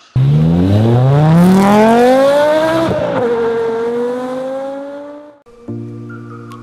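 A car engine accelerating hard from a sudden start, its pitch rising steeply, with a sharp drop like a gear change about three seconds in, then pulling on and fading away. Soft music begins near the end.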